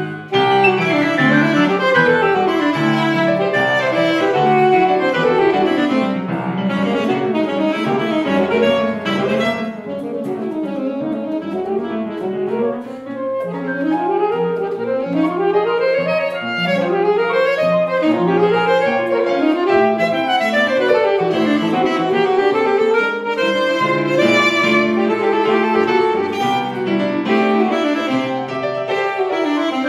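Saxophone and grand piano playing a lively classical duet, with fast runs sweeping up and down.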